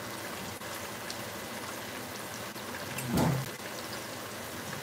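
Pork chops frying in oil in a skillet: a steady sizzle with scattered small pops. About three seconds in there is one brief, louder sound.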